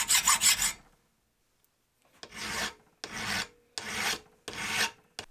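A hacksaw makes quick short strokes across a steel bolt held in a vise for about a second. After a brief pause, a bastard file rasps across the steel in four slow, even push strokes, filing wrench flats down to the saw-cut guide lines.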